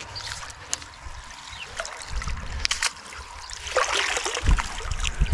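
Water splashing and trickling as a hooked carp is played in, with scattered small clicks and a couple of low thumps near the end.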